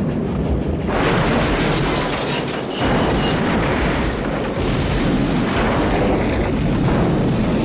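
Loud, dense rumbling booms laid over dramatic music as a soundtrack, with a brief dip just before three seconds in.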